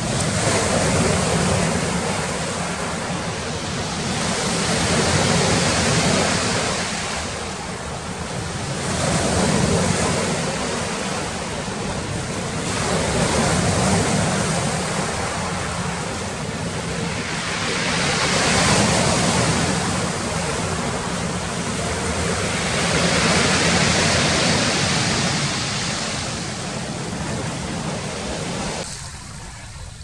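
Black Sea waves breaking on a beach, the surf swelling and washing back about every four to five seconds. The sound drops away abruptly about a second before the end.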